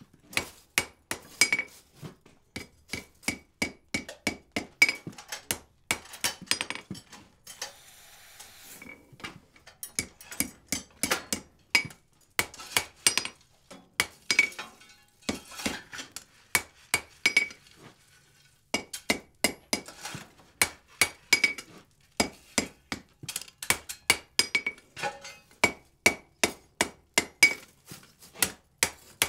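Hand-hammer blows on red-hot steel on an anvil, driving a handled hot-cut chisel, with the anvil ringing on each strike. The blows come in rapid runs, broken by short pauses about eight seconds in and again around fifteen to eighteen seconds in.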